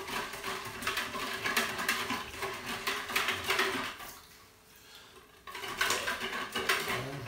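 A utensil stirring salt brine in a plastic bucket to dissolve the salt: a fast run of scraping and knocking against the bucket that stops about four seconds in and starts again a second and a half later.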